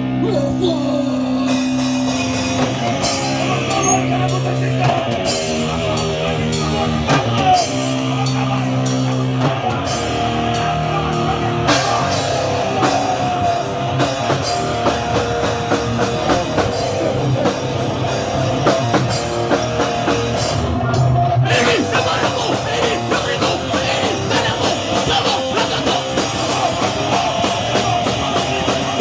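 Hardcore band playing live: heavy, distorted amplified guitar and bass with a drum kit. The drums come in harder about ten seconds in, and the whole band thickens about two-thirds of the way through.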